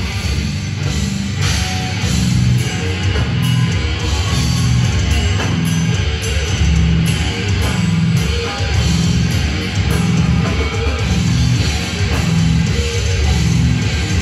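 Death metal band playing live: down-tuned electric guitars and bass churning through a heavy riff over a drum kit. It is loud and dense throughout, heard from the crowd through the club's PA.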